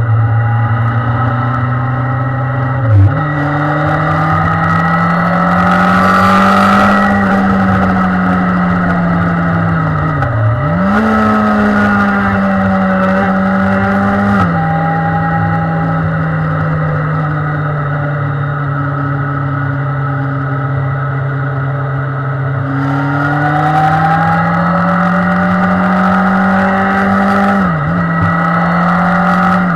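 Honda Hornet 900's inline-four engine running under way, its note rising and falling with the throttle and dipping sharply at several gear changes. Wind rush on the onboard microphone comes and goes with the faster stretches.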